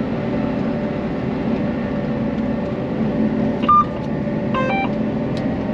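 John Deere 9800 self-propelled forage harvester running steadily under load while chopping maize, heard from inside the cab. About three and a half seconds in a short electronic beep sounds, then a quick run of stepped beeps just before the five-second mark.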